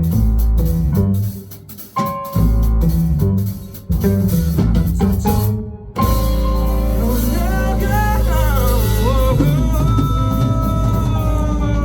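Live funk band playing: tight stop-start hits with short breaks between them, then about six seconds in a long held chord with a lead line sliding and bending over it.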